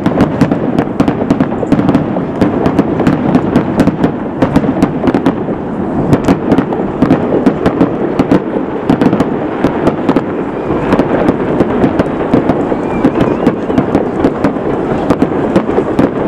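Aerial firework shells bursting in a rapid, unbroken run of sharp bangs, several a second.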